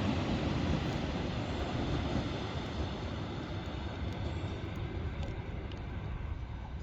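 Electric commuter train running past on the railway line, a steady rumble of wheels on track that slowly fades as it moves away.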